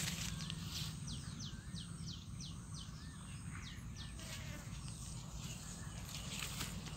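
Outdoor field ambience: a run of quick, high, downward-sweeping calls from a small creature, about three a second for a few seconds, with fainter chirps and a low steady rumble underneath.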